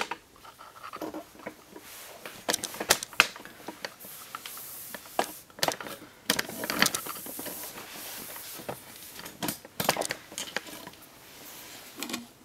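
Handling noise from a handheld camera being moved along bookshelves: scattered clicks, scrapes and rustles at irregular intervals.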